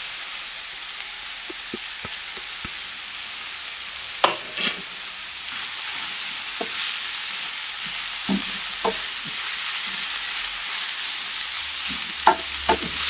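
Onions, mushrooms and cured meats frying in olive oil in a pan, a steady sizzle, with a utensil knocking against the pan a few times as the mixture is stirred.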